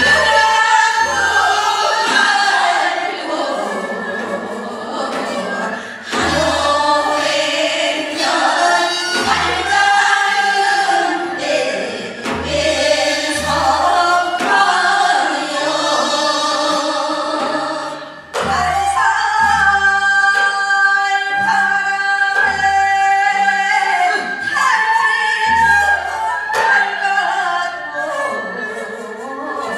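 Voices singing a Gyeonggi hwimori japga, a fast Korean folk narrative song, in a bright, pressed style, with low drum strokes at irregular intervals beneath.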